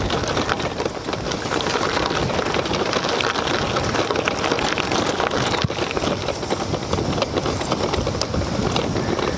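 Riding noise from a bicycle on a rough grassy dirt track: a loud steady rush of wind on the microphone with many small crackles and rattles from tyres and the loaded bike.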